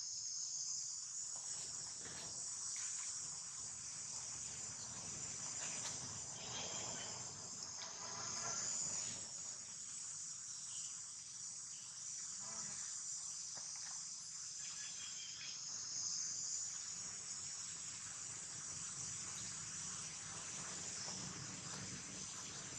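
Steady, high-pitched chorus of insects, with a few faint, short sounds over it.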